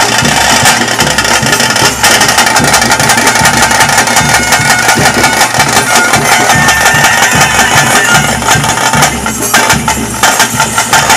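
Loud, dense ritual music: drums beating a steady rhythm under a thick wash of other instruments.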